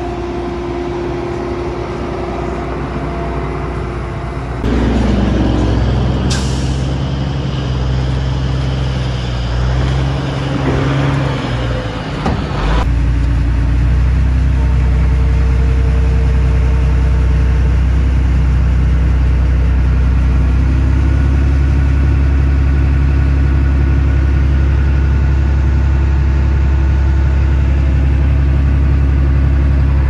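John Deere S660 combine's diesel engine running. It gets louder about four and a half seconds in, with a short hiss about six seconds in, and from about thirteen seconds on it settles into a deeper, steady drone.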